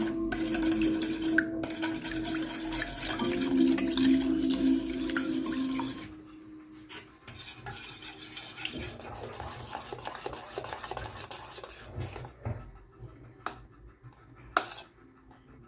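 A utensil stirring and scraping in a mixing bowl, busy and loud for about six seconds, then quieter with scattered light clinks and a sharp knock near the end. Steady background music tones run under the first part.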